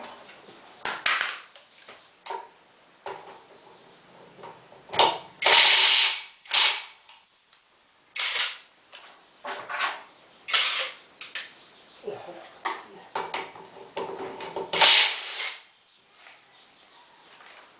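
Hand tools and metal parts being handled during a washing machine repair: irregular clinks, knocks and scrapes, a few of them lasting about a second.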